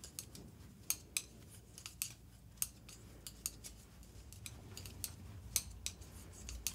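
Knitting needles clicking and tapping against each other as stitches are knitted and purled: faint, irregular clicks, a few a second, some sharper than the rest.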